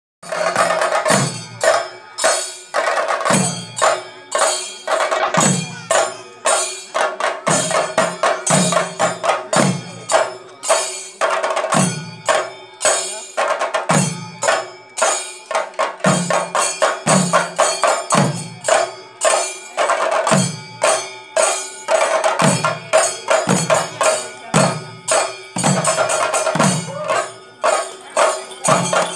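Ensemble of chenda drums played with sticks in fast, dense rolls, with heavier low beats about once a second over a steady held tone.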